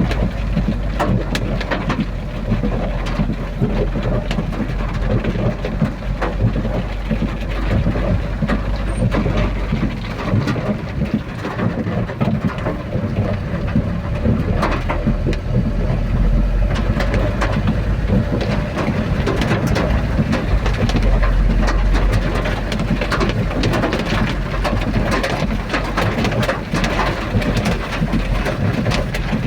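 Rain falling steadily, with many separate drops striking close by and a low rumble underneath.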